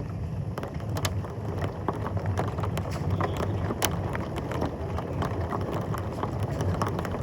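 Thunderstorm wind and rain as a steady low rumble and hiss, with irregular sharp taps of precipitation striking a hard surface.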